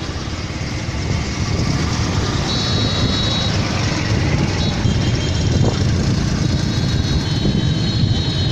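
Steady rumble of heavy cargo-truck engines and tyre and road noise while driving close past trucks on a highway, with a thin high whine that comes in a few seconds in.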